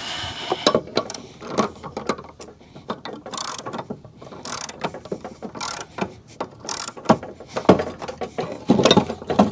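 Hand socket ratchet tightening a mower blade bolt on a mower deck spindle, its pawl clicking in short, irregular runs of strokes with brief pauses between them.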